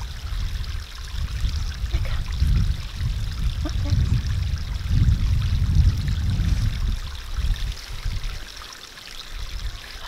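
Wind buffeting the microphone in uneven gusts that ease off near the end, over the steady trickle of a garden stream.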